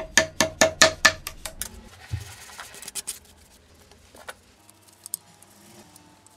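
Quick run of sharp metallic clicks, about five a second for a second and a half, each with a short ring, as a lever on an old Galileo Rockwell hardness tester is worked by hand. A few scattered clicks and light knocks of handling follow.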